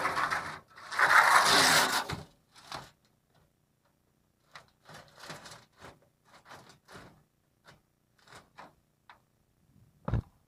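Two long, loud scrapes, then a string of light, irregular taps and rattles, and a single sharp thump near the end.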